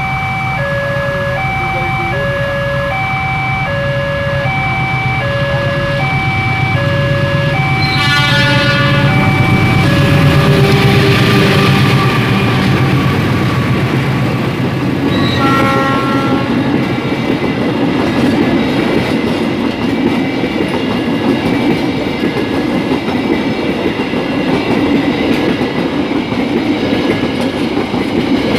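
A level crossing warning alarm chimes in two alternating tones, about two a second. About eight seconds in, a diesel locomotive's horn sounds long and loud, and a second short blast comes a few seconds later. The locomotive and passenger coaches then pass close by with a steady rumble and clack of wheels on the rails.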